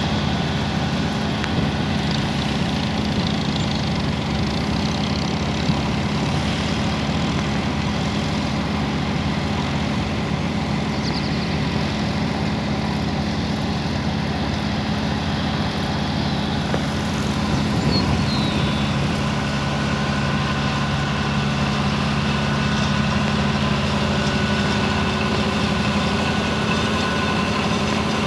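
A heavy engine running steadily at a constant speed, a low even hum that does not rise or fall.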